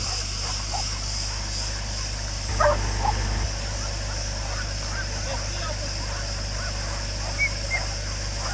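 Scattered short animal calls, honk-like, with the loudest few about two and a half to three seconds in and two more near the end, over a steady hiss.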